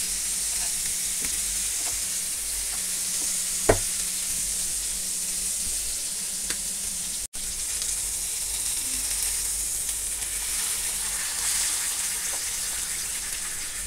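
Chicken leg pieces sizzling steadily in hot oil and butter in a non-stick frying pan over a high gas flame, with one sharp tap about four seconds in.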